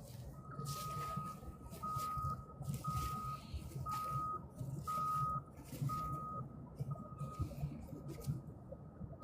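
Vehicle reversing alarm beeping about once a second, seven even beeps on one pitch, the last ones weaker, over a low rumble.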